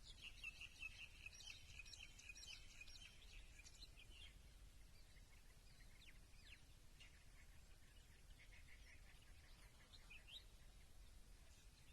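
Small birds chirping: a fast run of high chirps for about the first four seconds, then scattered single chirps, a short trill and one rising note near the end. Beneath them is a faint low background rumble.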